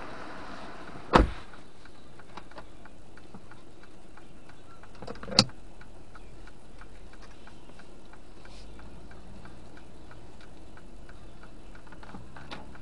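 Inside a slowly moving car: two sharp knocks, the first about a second in and the second about four seconds later. Faint light ticking runs under a steady cabin hum.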